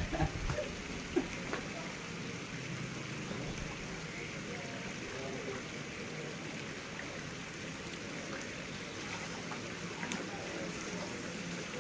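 Steady, rain-like hiss of water, with a few faint knocks.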